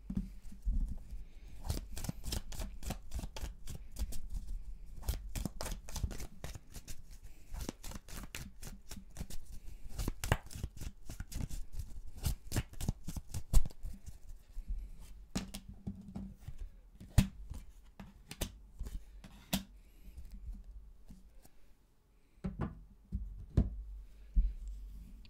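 Deck of tarot cards being shuffled by hand: rapid card-on-card snapping for the first half, thinning out, then a few separate taps near the end as cards are laid down on a wooden table.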